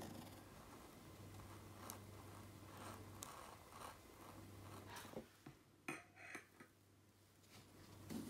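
Scissors cutting out a thin pattern piece along a traced line: faint snips and rustles, with a few sharper clicks a little past halfway.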